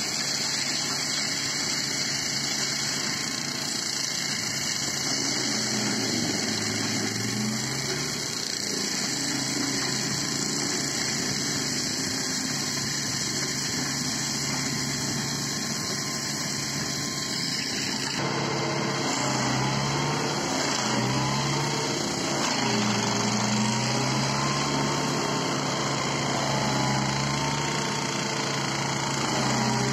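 Compact tractor engine driving a REMET F3-175 forestry mulcher that is shredding willow brush. The engine note dips and recovers again and again as the rotor takes in stems, and the sound changes abruptly about two thirds of the way through, then wavers more.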